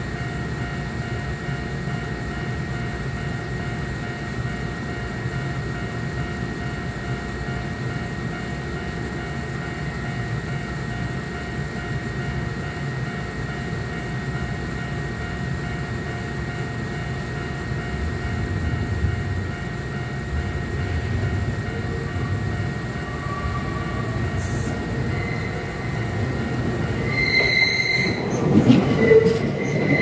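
Steady low rumble and hum from the railway for most of the time, then near the end an electric train, the Kintetsu 3200 series, approaches and passes close at speed: a brief high wheel squeal about 27 seconds in, followed by loud clatter of the wheels over the rails.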